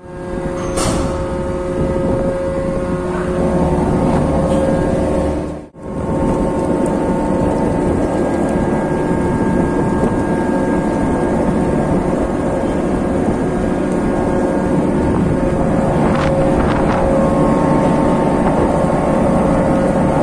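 Ship's mooring winch running steadily while heaving in mooring ropes: a constant machine hum with several steady tones, with some wind on the microphone. The sound drops out briefly at the start and again about six seconds in.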